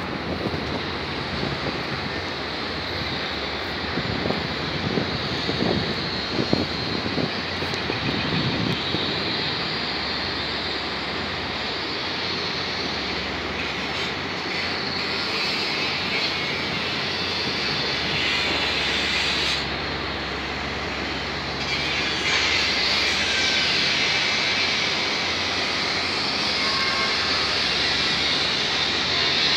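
A steady rumble and hiss of outdoor background noise, with a few low gusty thumps in the first several seconds.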